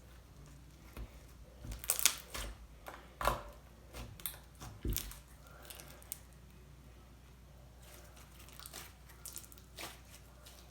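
Hands squishing and stretching a soft slime made with body lotion, giving scattered little clicks and pops. They are busiest in the first half and come again briefly near the end.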